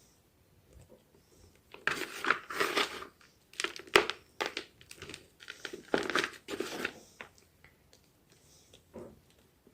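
Homemade gym chalk crunching and crumbling in close, crisp crackles. Three dense runs come from about two to seven seconds in, then a lone crunch near the end.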